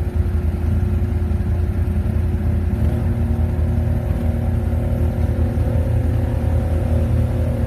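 ATV engine running steadily under load as the quad ploughs through deep water. Its pitch rises a little about three seconds in.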